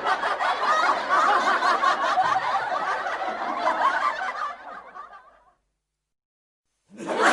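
Laughter sound effect: continuous snickering laughter that fades out about two thirds of the way through, then a second or so of silence before another burst of laughter starts just at the end.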